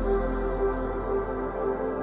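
Ambient background music with sustained synthesizer-like tones and a low bass note, fading gently.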